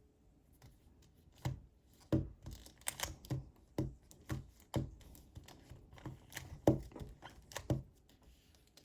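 Rubik's Cube layers being turned one move at a time with two fingers: a string of irregular plastic clicks and clacks as each face snaps into place, working through a JB-perm.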